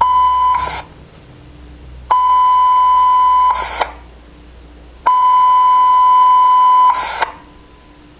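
Fire dispatch alert tone heard over a radio: three steady high beeps, the first brief and the next two longer, each ending in a short burst of radio noise.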